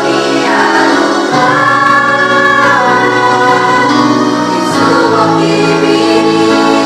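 A vocal group singing together in unison, holding long notes that change pitch about a second in and again a little before five seconds.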